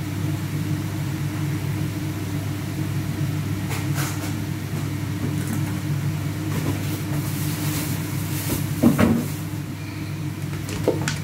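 A steady low mechanical hum, with a few light clicks and a louder knock about nine seconds in.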